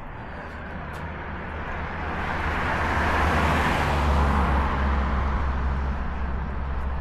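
A road vehicle passing by: its tyre and engine noise swells to a peak about three to four seconds in and then fades, over a low engine rumble.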